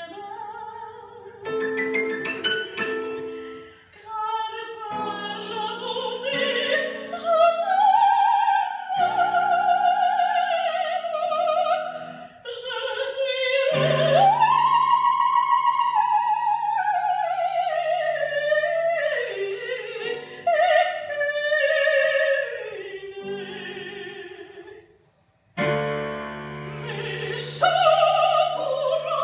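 Soprano singing an opera aria with digital piano accompaniment. Her line climbs to long held notes, and the music breaks off briefly near the end before she resumes.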